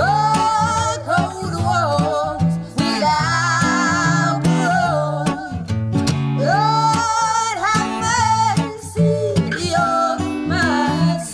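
Background music: a song with acoustic guitar strumming and a wavering lead melody over a steady bass.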